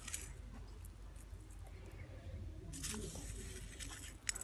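Faint rustling and light clicks of coriander seeds being scooped by hand from a steel plate and sprinkled onto soil, with a brief hiss near the middle and a sharp click near the end.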